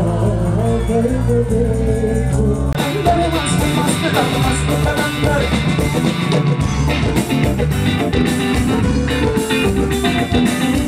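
Live pop-rock band music with singing: held notes at first, then drums and electric guitar come in about three seconds in.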